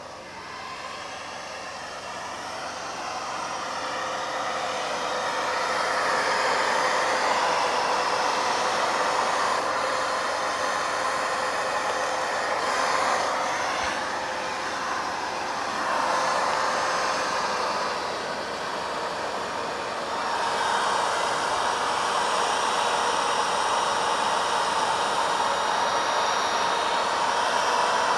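Electric drill motor running with a steady whine, easing off briefly a couple of times, as it bores into the fibrous trunk of a date palm.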